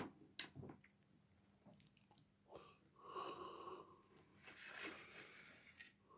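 Near silence with two sharp clicks near the start, then a person breathing twice near the microphone in the second half.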